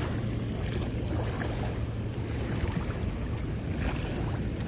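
Steady low rushing rumble of water pouring through a dam spillway.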